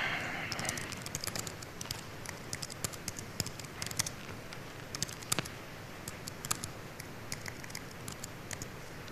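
Irregular clicking of laptop keys being typed, several clicks a second with short pauses between runs. A brief rush of noise comes right at the start.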